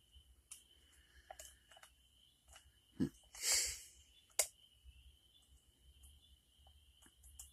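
Small clicks and scrapes of lock picks and a tension tool working a pin-tumbler lock, with a soft knock about three seconds in, a short breathy hiss just after, and a sharp click about a second later.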